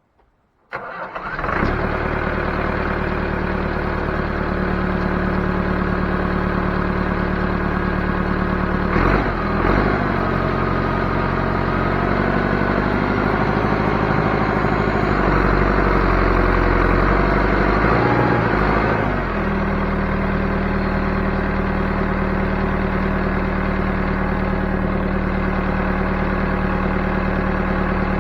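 Backhoe engine starting up with a sudden catch under a second in, then running steadily. About 9 s in it speeds up and works harder for about ten seconds, then settles back to idle.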